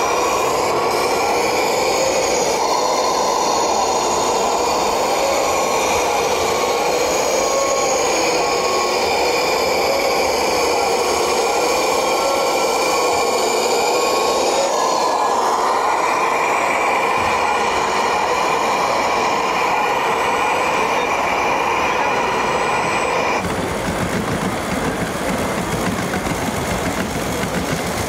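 A steady machine whine holding several tones at once, wavering slightly, with a small shift in pitch about halfway through. It stops abruptly about five seconds before the end, leaving a rougher, lower mechanical noise.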